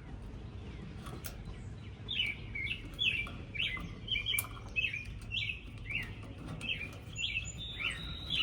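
A small bird calling over and over, short chirps that fall in pitch, about two a second, starting about two seconds in, over a steady low rumble.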